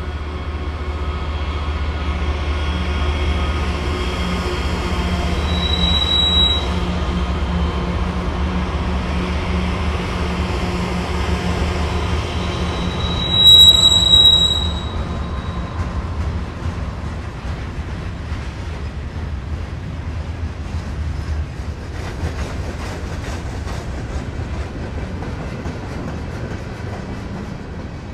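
Freight train rolling by on a curve: Norfolk Southern diesel locomotives pass with a steady low engine hum that fades after about twenty seconds, and the cars roll on behind them. A short high wheel squeal comes about six seconds in, and a louder one about fourteen seconds in.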